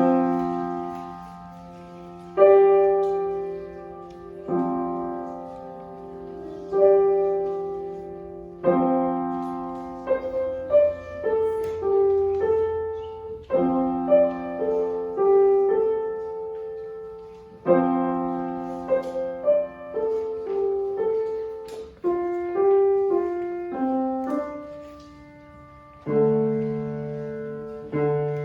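Solo piano playing a slow, ringing piece. It opens with a chord struck about every two seconds, each left to ring and fade, then moves to quicker melody notes over held chords.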